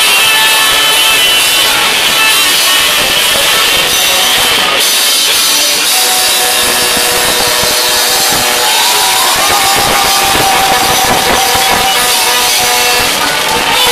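Rock band playing live, with electric guitars and drums, heard loud from within the audience.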